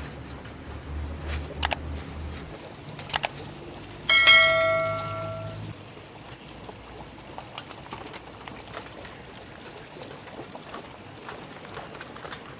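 A metal object struck once, ringing with a clear bell-like tone that dies away over about a second and a half, after a few sharp clicks.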